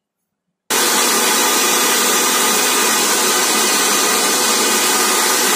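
Electric mixer grinder running at full speed, blending chopped muskmelon with milk and water into a shake. The loud, steady run starts suddenly about a second in and cuts off abruptly at the end.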